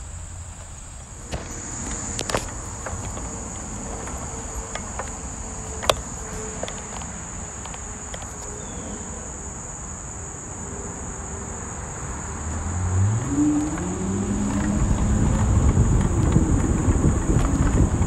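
Insects trilling steadily at a high pitch. About two-thirds of the way in, a rising motor whine and growing wind and path rumble as an e-bike starts moving.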